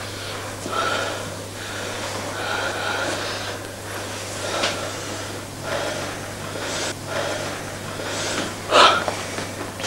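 Heavy breathing and gasps from a couple having sex, coming in breathy puffs every second or two, with one loud, sharp gasp near the end.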